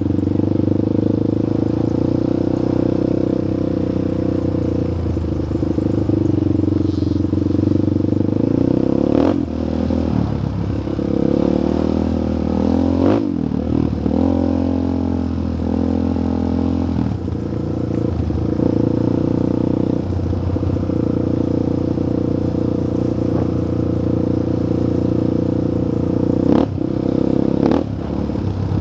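Single-cylinder off-road engine running under way, steady, with its pitch rising and falling as the rider works the throttle and gears through the middle stretch. A few sharp knocks come from the machine jolting over bumps in the dirt.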